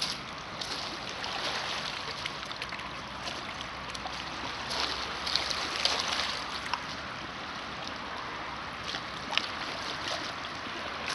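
Small waves lapping against a rocky lakeshore: a steady wash of water with a few brief, sharper splashes.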